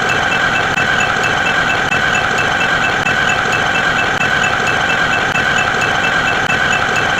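Loud, steady mechanical drone like an idling engine, with a faint high-pitched beep repeating about four times a second.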